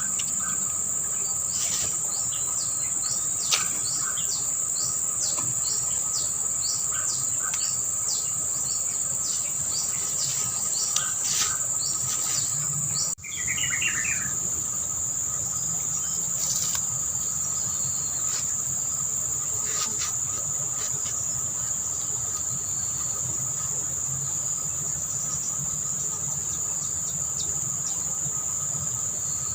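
Crickets or similar insects buzzing in a steady high-pitched drone, with many short, sharp chirps over the first dozen seconds.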